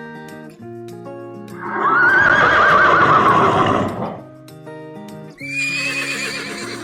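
A horse whinnying twice over background music. The first whinny, about two seconds in, is long and loud with a quavering pitch; a shorter, higher one comes near the end.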